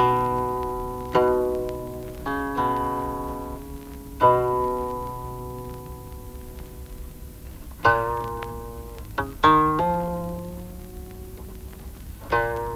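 Guzheng played slowly: single plucked notes and small clusters, each ringing out and fading, a second to a few seconds apart, with one note sliding down in pitch in the second half.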